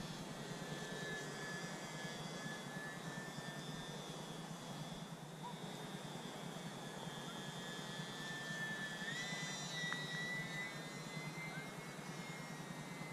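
E-flite UMX Turbo Timber RC plane's small electric motor and propeller whining steadily in flight. The pitch steps up about nine seconds in.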